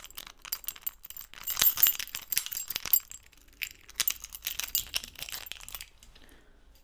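Rapid, irregular clinking and jangling of small hard objects, stopping abruptly about six seconds in.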